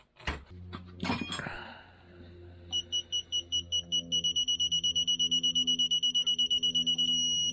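Digital torque wrench beeping as cylinder head bolts are tightened: rapid high beeps start about three seconds in and close up into a near-continuous tone, the signal that the set torque of about 18 foot-pounds is reached, then cut off near the end. A short clatter comes about a second in, and a faint low hum runs underneath.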